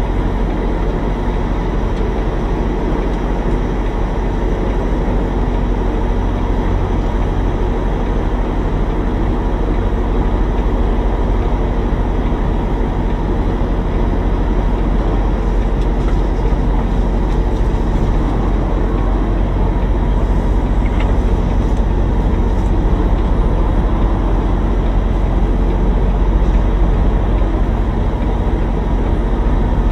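Semi truck's diesel engine running at a steady low idle while the tractor-trailer backs slowly, heard from inside the cab.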